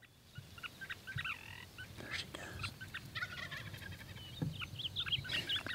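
Wild turkeys gobbling several times, fairly faint, in short rapid strings of calls.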